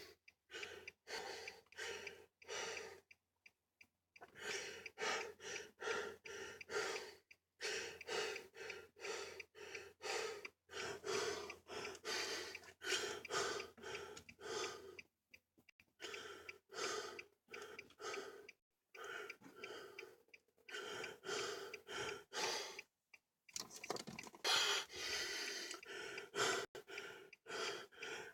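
A person breathing quickly and raggedly, with gasps: short breaths about two a second, broken by brief pauses every few seconds.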